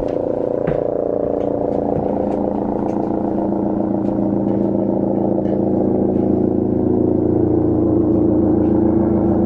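Helicopter N311PH running on its landing approach, a steady droning hum from rotor and turbine that grows a little louder over the last few seconds.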